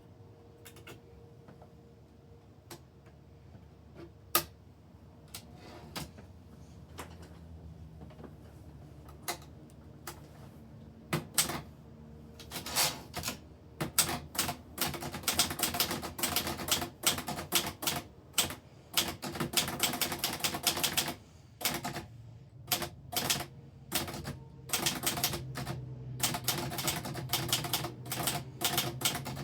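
1971 Underwood 330 typewriter being typed on: sharp key strikes, a few scattered ones at first, then quick, steady runs of typing from about twelve seconds in, with short pauses.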